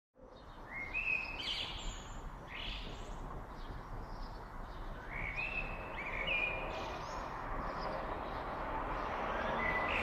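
A songbird singing two short phrases of rising chirps and whistles, over a steady low background rumble of outdoor noise.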